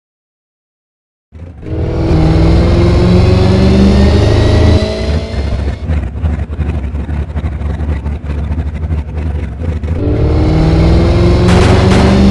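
Twin-turbo Pro Mod Camaro drag car engine cutting in suddenly at high revs, its pitch rising steadily; from about five seconds in it goes rough and choppy, then rises in pitch again near the end.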